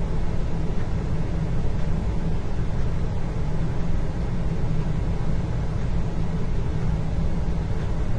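Indoor ambience: a steady low rumble with a faint hiss above it, unchanging throughout, with no distinct events.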